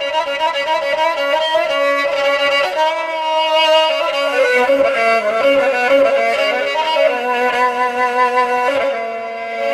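Violin music: a bowed violin playing a moving melody over lower held notes.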